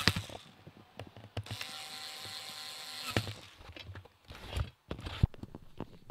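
A small motor whirs steadily for about a second and a half, starting and stopping with clicks, followed by scattered clicks and knocks of handling.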